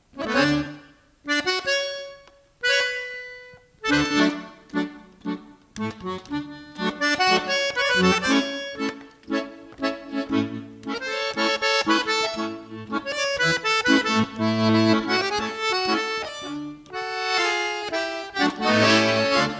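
Accordion music: a few separate chords over the first four seconds, then a continuous tune.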